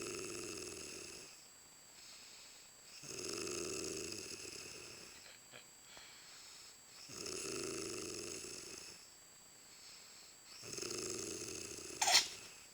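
A sleeping woman snoring: four long snores of about two seconds each, coming roughly every three and a half to four seconds. During the last snore, near the end, a brief sharp noise cuts in, the loudest sound here.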